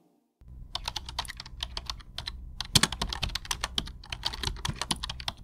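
Fast, irregular keyboard-typing clicks, a typing sound effect that matches a caption being typed out letter by letter, over a low steady hum.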